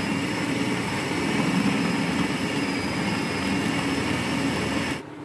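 Electric food chopper running steadily with a high whine as its blade grinds raw mutton mince with onion, tomato and green chillies into a paste. The motor cuts off suddenly near the end.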